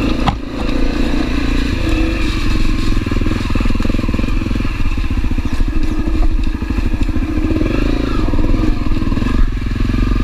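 Honda CRF250L's single-cylinder four-stroke engine running at low trail speed, its note rising and easing a few times with the throttle, over the crunch and clatter of tyres on leaf-covered rocky ground. There is a single sharp knock just after the start.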